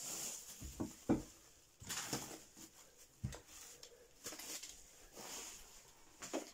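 Unpacking handling noise: plastic bubble wrap rustling in short swishes and a few dull knocks as a keyboard is lifted out of its hard carrying case and set aside on a wooden desk.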